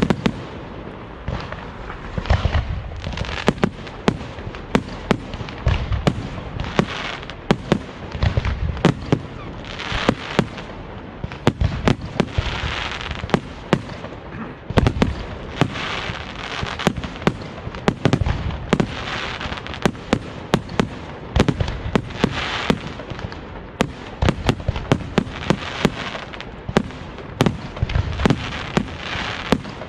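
Aerial fireworks display: a dense, unbroken run of sharp shell bursts and bangs, several a second, over crackling and low booming thumps.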